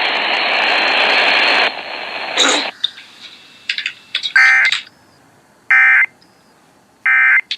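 Emergency Alert System end-of-message data bursts from a relayed monthly test: three short, identical buzzy digital bursts about 1.3 seconds apart, marking the end of the alert. Before them, noisy broadcast audio cuts off about two seconds in.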